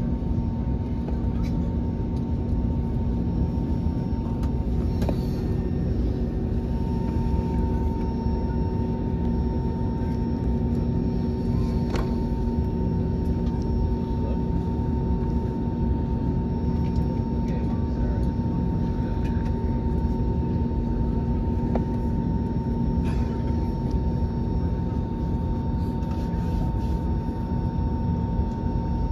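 Steady cabin drone of an Airbus A320-family airliner idling on the ground: low rumble of the idling jet engines and air system with a constant hum, and a few faint clicks.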